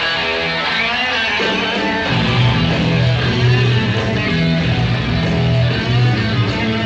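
Live rock band: electric guitar playing alone at first, then the rest of the band comes in about two seconds in with a heavy bass line, the music growing louder and fuller.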